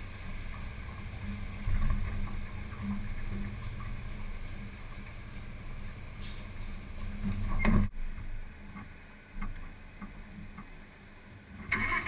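Steady low drone and wind rumble of a light airplane in flight, heard from a wing-mounted camera. There is a sharp knock about eight seconds in, and a sudden louder rush of wind noise near the end.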